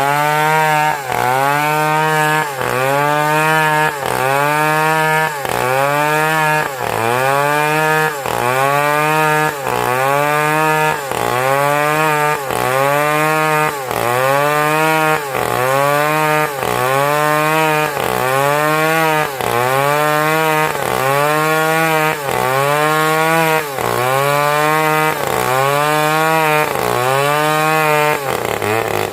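Chainsaw engine running hard in quick repeated cycles, about one a second, its pitch climbing and then sagging each time as it works through wood.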